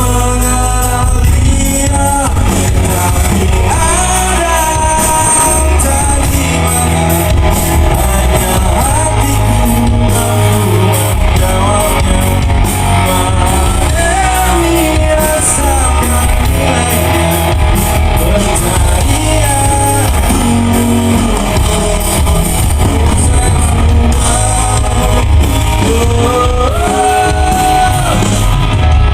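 Live rock band playing loudly: drums, bass and electric guitars, with a bending melody line sung or played over them.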